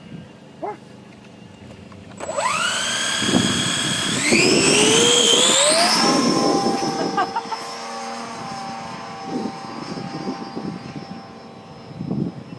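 Electric motor and folding propeller of a large RC sailplane powering up about two seconds in. The whine rises in pitch in steps to a steady high pitch about six seconds in, then holds while slowly fading.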